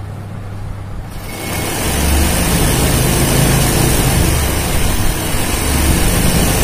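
Electric sewing machine running steadily as it does free-motion embroidery stitching through hooped cotton fabric. It grows louder and harsher about a second in.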